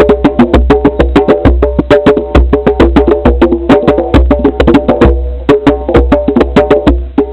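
Fast percussion music: rapid, closely spaced strikes, several a second, each with a short pitched ring, over a heavy low rumble.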